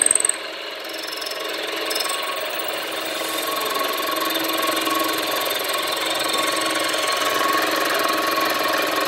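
A power tool running steadily with a rubbing, cutting noise as valve reliefs are cut into a motorcycle racing piston. A louder moment right at the start, then a dip, and the noise slowly builds to a steady level.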